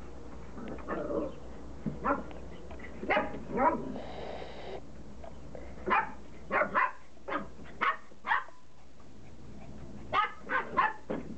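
Border collie puppies barking: short, high yaps in clusters of two or three with pauses between.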